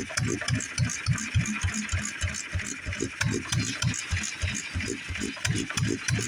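International Harvester Type M stationary engine running steadily, its low pulse beating about four to five times a second, with light clicking on top.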